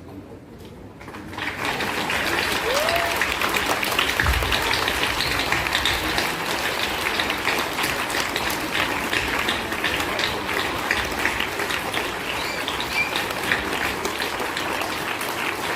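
A crowd clapping, beginning about a second in and going on steadily.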